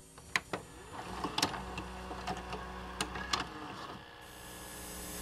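VCR-style tape playback sound: a mechanism whirring with about four sharp clicks over a steady electrical hum, as when a videocassette is loaded and starts to play.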